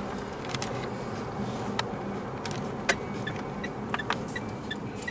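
Pickup truck heard from inside the cab, its engine idling steadily, with a few scattered clicks. From about three seconds in, a regular series of short high ticks starts, about two and a half a second.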